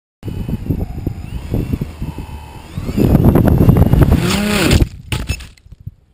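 A multicopter's electric motors whining and the craft scraping and tumbling over gravel and grass as it flips instead of lifting off, the upshot of motors wired to spin the wrong way. It gets loudest about three seconds in, then cuts off suddenly near the end with a few last knocks.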